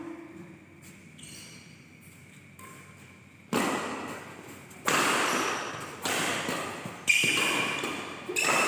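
Badminton rackets striking a shuttlecock in a rally: five sharp hits about a second and a quarter apart, starting a few seconds in, each ringing on in the echo of a large hall.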